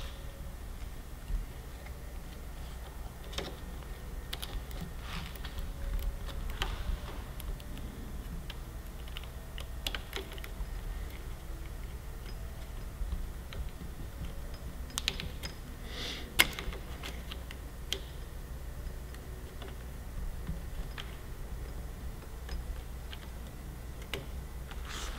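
Scattered small clicks and taps of hands fitting throttle cables into a motorcycle's plastic throttle housing, the loudest about two-thirds of the way through, over a low steady hum.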